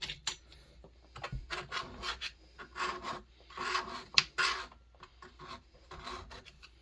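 Irregular scraping and rubbing strokes as grime is worked off a dirty Pioneer NU-17 chainsaw during teardown, with a sharp click about four seconds in.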